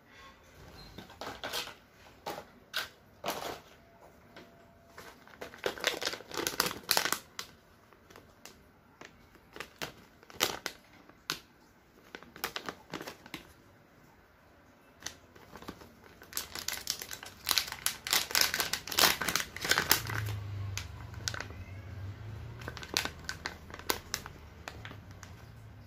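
Plastic packaging pouch crinkling and crackling as it is handled and opened, with taps and clicks of cardboard box handling; the crinkling is densest about two-thirds of the way through.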